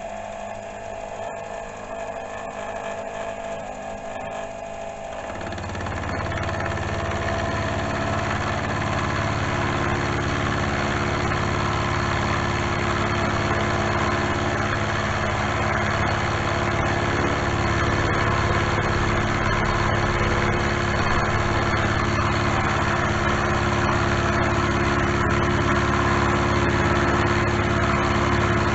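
Milling machine running, then about five seconds in the end mill begins cutting into the steel block under power feed: a louder, steady cutting noise with a strong hum that carries on.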